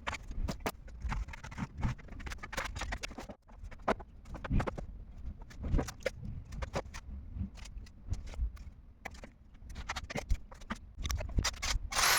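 Irregular knocks, taps and scrapes of hand work on a wooden frame and acrylic panel, some sharp and some dull, with short pauses between them.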